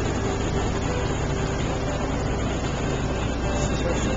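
Boat motor running slowly: a steady low rumble under a wash of noise.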